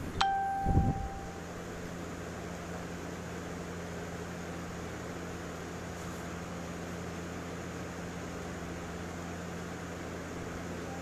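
Steady low mechanical hum with a constant low tone. Just after the start there is a brief bright metallic ping that rings for about a second, then a couple of dull low thumps.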